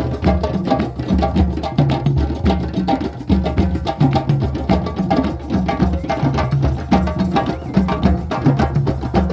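Drums played together in a fast, steady rhythm: sharp clicking slaps over repeating deep, low strokes.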